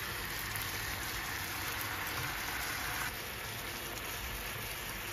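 Teriyaki sauce bubbling and sizzling around salmon fillets in a frying pan: a steady hiss that drops a little about three seconds in.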